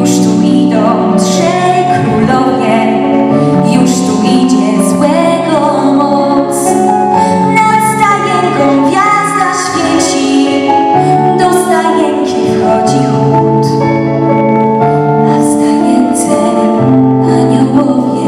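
A female vocal group sings a Polish Christmas carol through microphones, with a lead female voice over a sustained musical accompaniment.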